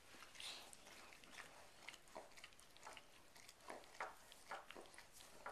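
Faint, irregular wet smacking and slurping of a German shepherd licking inside another dog's mouth, a few smacks a second.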